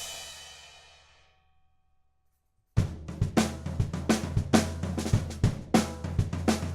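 Drum kit: a cymbal crash rings out and fades away over about two seconds, then after a short silence a steady groove starts, with the 14 by 6.5 inch Brady jarrah block snare cracking over bass drum and cymbals.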